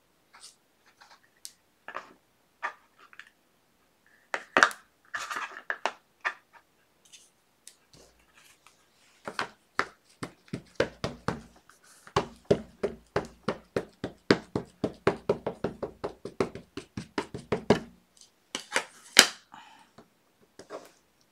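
A rubber stamp and ink pad tapped again and again on a craft table, several quick knocks a second for most of ten seconds, with scattered handling clicks before and a sharper click near the end.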